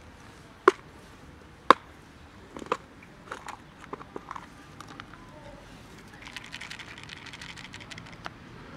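Clear plastic cat-food container being handled: two sharp plastic clicks about a second apart near the start, a few lighter taps, then a run of fast crackling clicks near the end.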